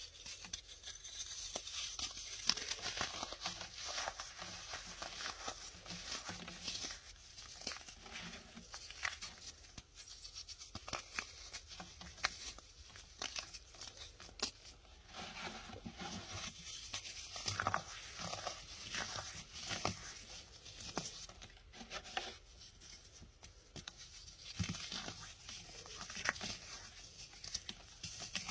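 Dried baking soda chunks being crushed and crumbled between fingers: a steady run of crisp, glassy crunches and crackles, with fragments and fine powder sifting down onto the pile.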